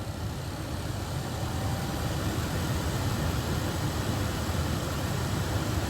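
The 2012 Dodge Charger's 3.6 V6 idling with the climate blower running: a steady low rumble under an even hiss.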